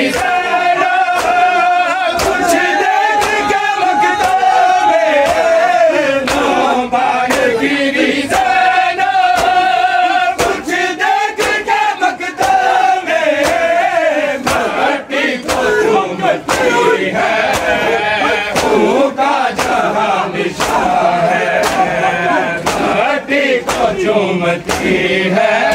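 A crowd of men chanting a noha together while doing matam, beating their bare chests with their hands. The slaps land as sharp claps in a steady rhythm under the chant.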